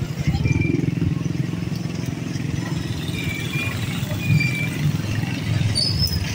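Motor vehicle engine running with a steady low rumble, a few short high chirps over it.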